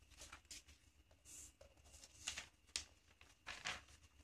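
Sheets of paper rustling and crinkling as they are handled, in a series of short, faint crackles, the loudest a little past the middle.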